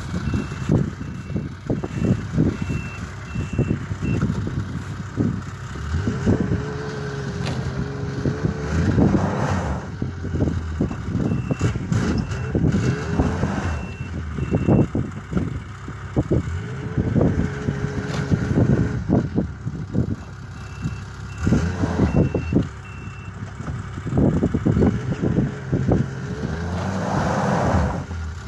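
Yamaha snowmobile engine running and revving up in repeated surges, straining under load as it tows a light aircraft stuck in deep snow. Three short runs of evenly spaced high beeps sound over the engine.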